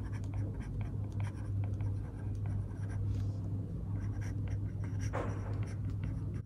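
Stylus tip tapping and scratching on a tablet's glass screen while writing, a run of small, irregular ticks over a steady low hum.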